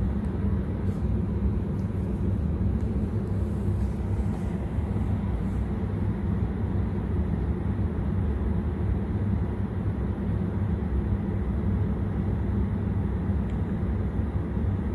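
Chicken wings deep-frying in hot oil in a kadai: a steady, even bubbling noise that sits low, with no distinct pops.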